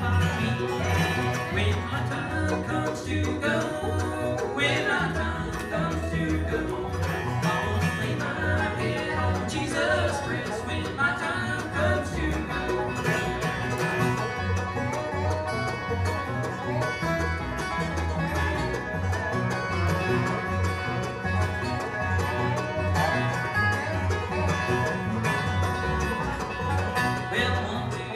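Bluegrass band playing an instrumental break: banjo, mandolin, acoustic guitar and dobro over an upright bass keeping a steady beat of about two notes a second.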